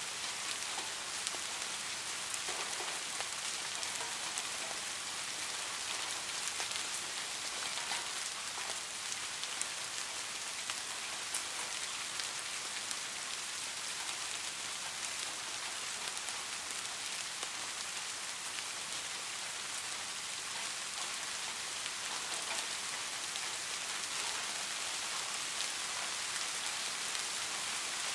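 Steady rainfall: an even hiss of rain with many fine individual drop ticks through it, holding constant without a break.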